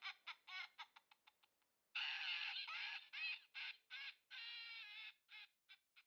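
A high-pitched cackling call, repeated over and over with a fading echo, in two bouts: the second starts loud about two seconds in and dies away near the end.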